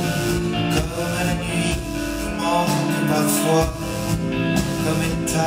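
Live pop band playing an instrumental passage of a slow song, with electric bass under sustained chords; the low bass notes drop out briefly about three seconds in.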